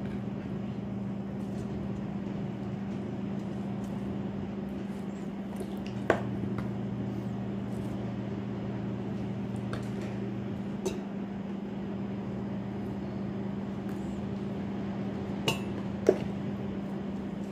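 A few light clinks and knocks as raw chicken pieces are laid on sliced vegetables in a stainless steel pot, over a steady low hum. The sharpest knock comes about six seconds in, and two more come close together near the end.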